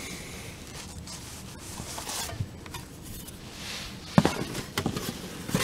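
Handling noise and rubbing as a metal license plate is picked up and brought to a heat-wrapped exhaust pipe. There is one sharp clack a little over four seconds in, then a few lighter knocks.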